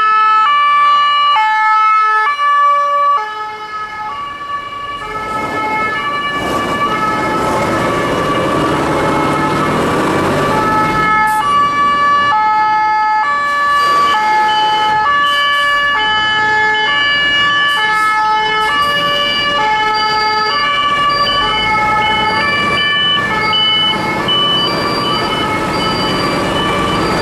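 Two-tone sirens of several fire engines on an emergency run, overlapping at different pitches, each switching back and forth between a high and a low note. A heavy vehicle's engine and tyres swell up as it passes close, between about five and eleven seconds in.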